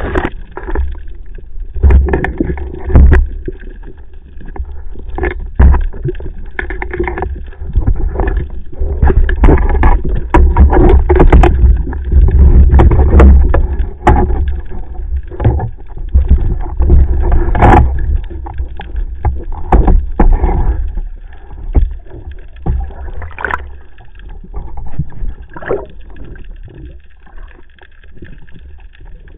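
Muffled water movement and splashing picked up by a camera during a breath-hold spearfishing dive: a heavy low rumble with many short knocks and clicks, louder in the middle stretch and fading toward the end.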